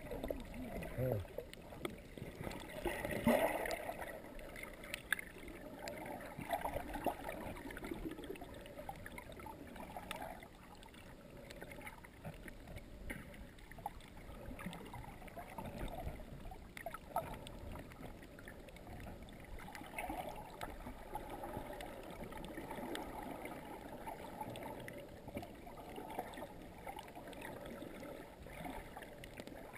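Muffled underwater sound picked up by a submerged camera: water moving and gurgling, with irregular small bubbling bursts.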